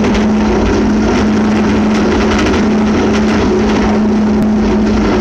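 Worm-gear drive of a port crane's elevator running as the car climbs, a steady loud hum with the cab rattling throughout; quite noisy and very rattly.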